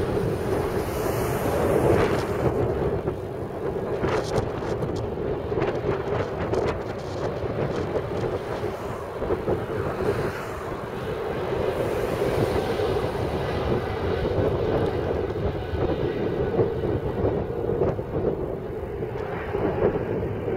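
A Boeing 777-300's twin jet engines at takeoff power during the takeoff roll, heard as a steady, continuous jet noise across the airfield. Gusts of wind buffet the microphone.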